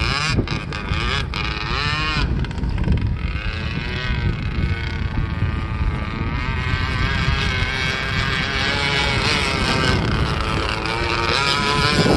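Zenoah 26cc two-stroke gasoline engine of a 1/8-scale RC hydroplane running across the lake, its whine rising and falling in pitch as the throttle changes. Wind rumbles on the microphone underneath.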